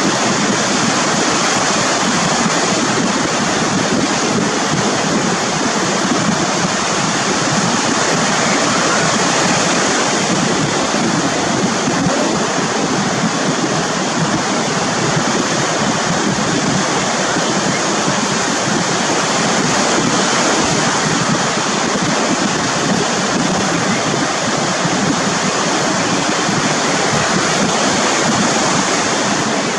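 Ocean surf breaking and washing onto the beach: a steady rush of noise.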